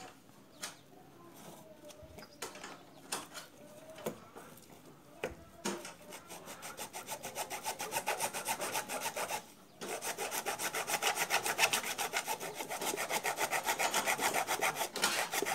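Bare hacksaw blade, held by hand, cutting through the plastic case of a sealed maintenance-free motorcycle battery. It starts with a few slow, uneven strokes, then about six seconds in settles into fast, steady back-and-forth sawing at about four to five strokes a second, pausing briefly once.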